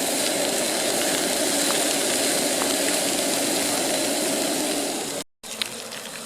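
Burgers frying on a camping stove: a loud, steady sizzle with the rush of the burner under it. It breaks off abruptly about five seconds in, and a quieter sizzle follows.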